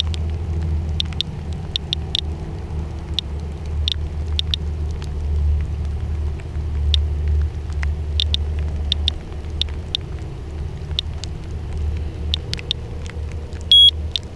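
Radiation Alert Inspector Geiger counter clicking irregularly, about one to two clicks a second, each click one detected count of background radiation, over a steady low rumble. A short, loud, high beep near the end.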